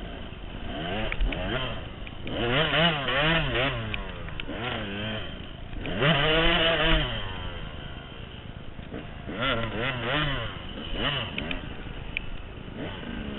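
KTM 200 two-stroke dirt bike engine, heard close up from a camera on the bike, revving hard and easing off repeatedly with its pitch wavering. There are three louder surges of throttle and scattered knocks as the bike crosses rough, muddy ground.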